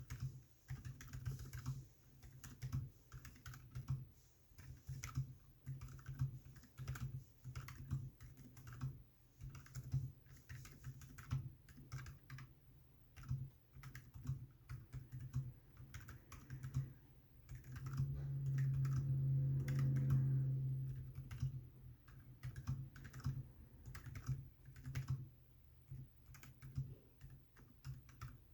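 Typing on a DZ60 mechanical keyboard with lubed Bobagum switches, a PC plate, PBT keycaps and a foam-filled ABS case, its solenoid switched off: a steady stream of irregular key clicks. Around the middle a low hum swells for about three seconds.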